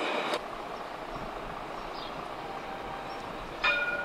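Alstom Citadis tram passing close with electric motor whine and rolling noise, cut off abruptly a third of a second in. Then a quieter steady background while a tram approaches, and near the end one sudden ringing strike with several tones that fades, like a tram's warning bell.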